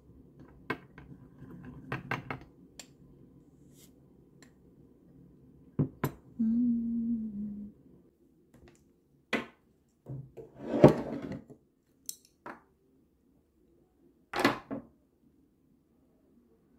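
Scattered clicks, knocks and short clatters of small objects being handled, with a brief low tone about six and a half seconds in.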